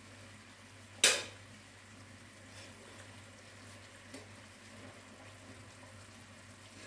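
Sugar syrup bubbling in a steel karahi over a gas flame, with a steady low hum underneath. A sharp clack of a utensil about a second in, and two faint knocks later.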